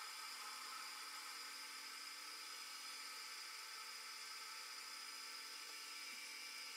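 Manual metal lathe running with a faint, steady high whir and hiss.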